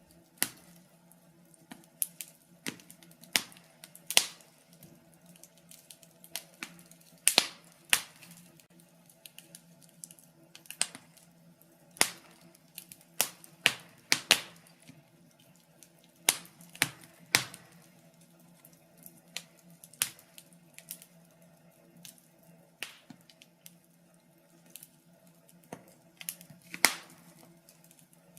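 Wood fire crackling in a fireplace: irregular sharp pops and snaps every second or so, some louder than others, over a faint steady hum.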